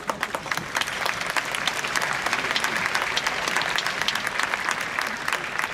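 Applause from the crowd and players, many hands clapping at once. It builds to its fullest around the middle and eases a little near the end.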